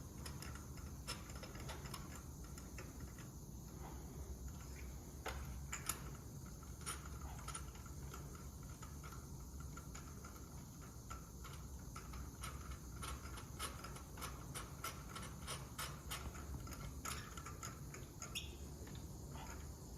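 Faint, irregular clicks and light taps of hand tools working on spark plugs, over a low steady hum.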